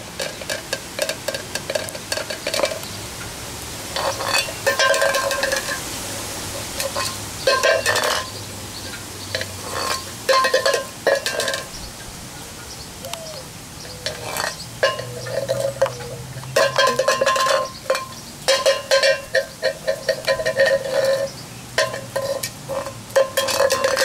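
Metal tin can pushed and rolled along the ground by a cockatoo's beak: rattling, scraping bouts with a metallic ring, coming and going every few seconds.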